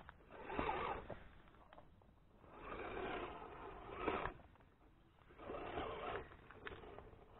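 Scale RC crawler's tyres scrabbling and crunching over frozen mud and ice in three short bursts of about a second each, with a few sharp clicks.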